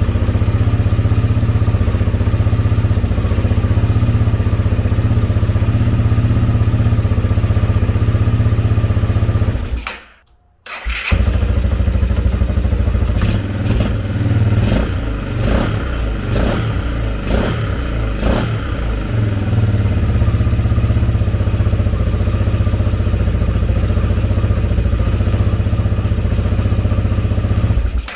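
A freshly rebuilt Kawasaki Bayou ATV's single-cylinder four-stroke engine idles steadily on its first run after the rebuild. The sound breaks off for about a second around ten seconds in, then the engine is running again, with a series of sharp knocks over it in the middle stretch.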